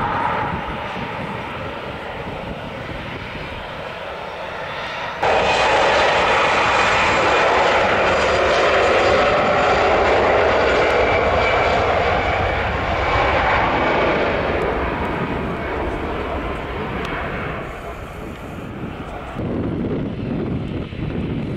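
Airbus A320 jet engines during the landing roll after touchdown: steady engine noise that jumps louder about five seconds in and then slowly fades. Near the end a lower engine noise from a Boeing 737-800 on the runway takes over.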